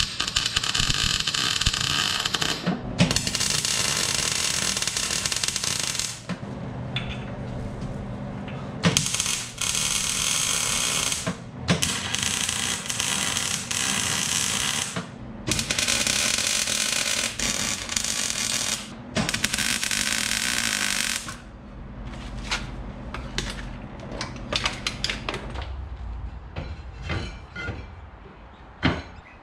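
MIG welder arc crackling and hissing in five runs of a few seconds each, with short pauses between beads. Near the end the welding stops and only scattered light clicks and knocks of metal parts being handled remain.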